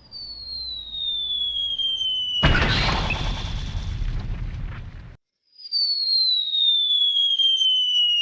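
Cartoon falling-bomb sound effect: a whistle gliding steadily down in pitch for a couple of seconds, then a loud explosion that cuts off suddenly. After a brief gap a second falling whistle begins.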